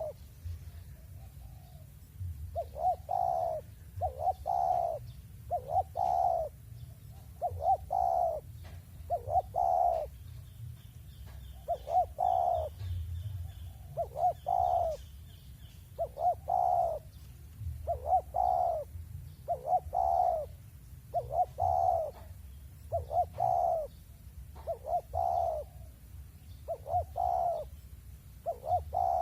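Spotted dove cooing over and over, one short two-part coo phrase every second or two. Faint chirping from another small bird joins about a third of the way through.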